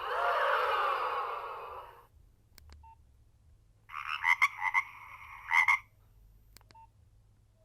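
Nokia 1600 ringtone previews playing through the phone's small speaker. First a warbling, gliding-pitch tone for about two seconds, then a short burst of stepped electronic notes. Short keypad beeps fall between them as the next ringtone in the list is selected.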